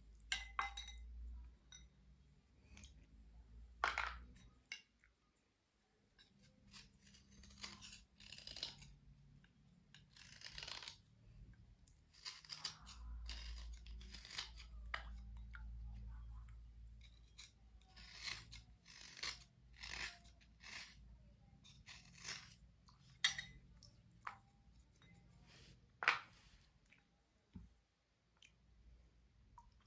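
Slate cubes being scraped and rubbed clean, heard as faint, irregular short scratchy strokes with a few sharp clicks, the loudest near the end.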